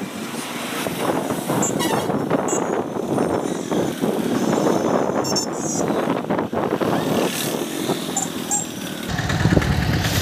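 Motorbike riding along a wet road in traffic: engine and tyre noise with wind rumbling on the microphone. A few short high squeaks cut through, and a steady low engine hum comes in near the end.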